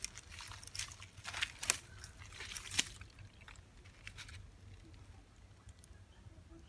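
Liquid trickling from a clear plastic cup into the neck of a plastic drink bottle, with a run of sharp plastic crackles and clicks over the first three seconds and a couple more about four seconds in, then quieter.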